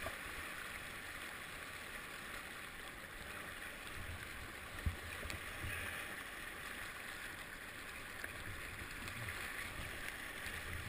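Fast, swollen river water rushing past a kayak, a steady hiss with soft low rumbles, and a single sharp knock about five seconds in.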